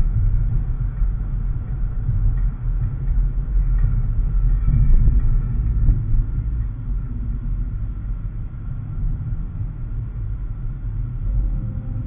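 Steady low rumble of a car driving on a paved road, heard from inside the cabin: engine and road noise.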